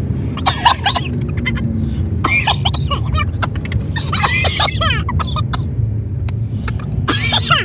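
People laughing hard in about four breathless, squealing bursts, over the steady low rumble of a car on the move.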